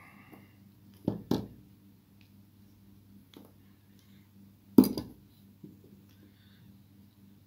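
Hand tools and small metal lighter parts knocked and set down on a workbench. There are two sharp knocks about a second in and a louder one just before five seconds in, over a steady low hum.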